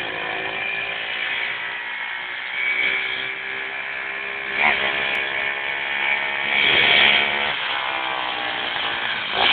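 Small Yamaha Bop motorbike with a 110 cc engine running and being revved as it rides closer, its pitch rising and falling several times and loudest about halfway through and again around two-thirds in.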